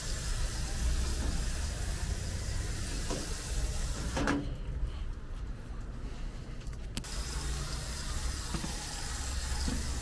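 A garden hose with a hose-end cleaner sprayer spraying onto an AC condenser coil: a steady hiss that cuts off about four seconds in and starts again about three seconds later, over a steady low rumble.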